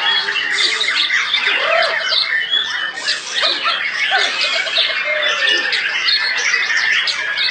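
Many caged white-rumped shamas (Borneo murai batu) singing at once, a dense overlapping chorus of whistles, chirps and rapid trills with no break.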